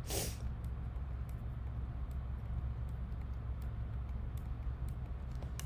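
Steady low electrical hum from the recording setup, with a few faint scattered clicks.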